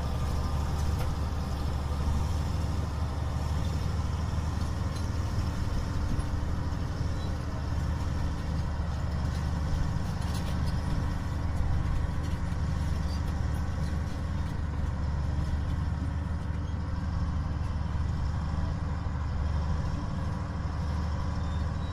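Crawler bulldozer's diesel engine running steadily under load, a deep even hum.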